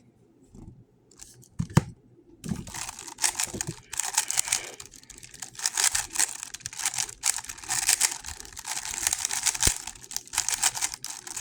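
GAN 11 M Pro magnetic speedcube being turned rapidly by hand: a fast, dense run of clicking, rasping layer turns that starts about two seconds in, after a few isolated clicks.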